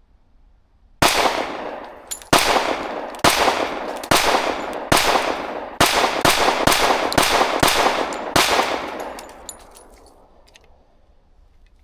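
Ported Girsan Witness 2311 Brat pistol in .45 ACP firing eleven shots, loud and sharp, each fading away. The shots start about a second in, widely spaced at first, then come faster towards the end.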